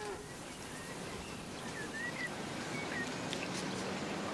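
Quiet outdoor background hiss with a few faint, short high chirps near the middle and a couple of soft clicks of plastic spoons in styrofoam food containers.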